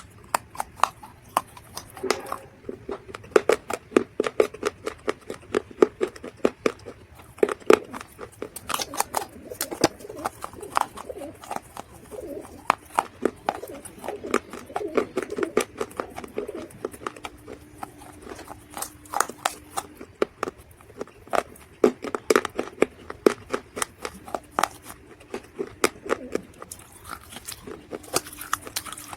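Dry mud crunching and crumbling as it is crushed: dense runs of sharp crackles and snaps.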